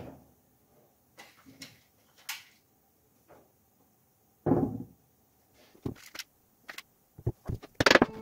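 Leather straps and a padded arm pad being shifted about on a plywood shield board: light scrapes and clicks, one heavier thump about four and a half seconds in, then a quickening run of sharp taps and knocks near the end.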